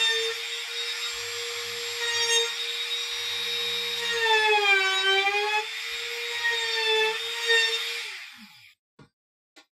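A high-speed electric power tool motor running with a steady high whine, its pitch sagging briefly around the middle as it takes a load, then switched off about eight seconds in and spinning down. A few faint clicks follow.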